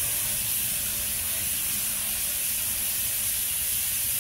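A steady hiss of spraying air or liquid, strongest in the highest pitches, holding an even level throughout, over a faint low hum.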